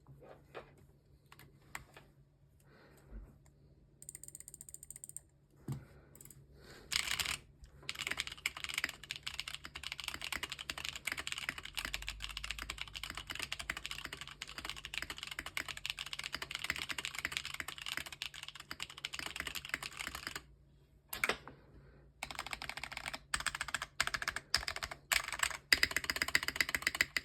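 Gehirn custom mechanical keyboard being typed on. A few scattered key presses give way to fast, continuous typing for about twelve seconds. After a short pause come several shorter bursts of typing near the end.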